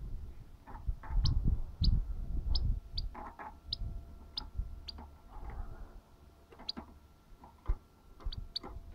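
Male European goldfinch giving a string of short, high tick-like notes, about one or two a second with a pause in the middle, over low thumps and rustling in the cage.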